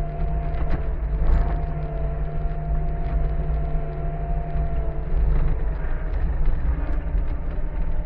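Skid steer engine running steadily while the machine drives, heard from inside the cab, with a steady whine over it and a few light knocks and rattles.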